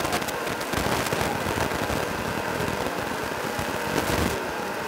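Street sweeper's rotating brush scraping the road: a steady rush of noise full of fast crackles, with the machine's engine running under it.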